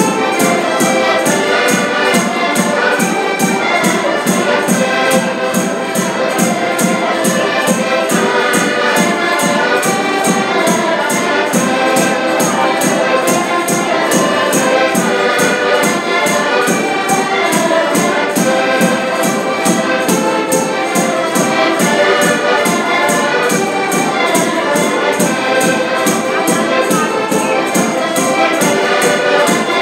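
Folk ensemble of five button accordions playing a tune together, with a drum keeping a steady beat.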